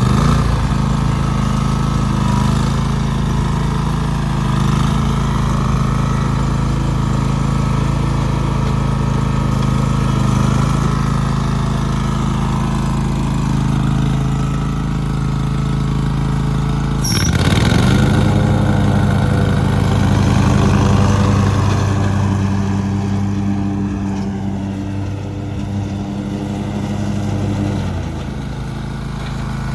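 Kubota T2290 lawn tractor's V-twin gasoline engine running steadily just after starting. About seventeen seconds in the note dips and then climbs to a higher speed as it is throttled up; near the end the engine note stops.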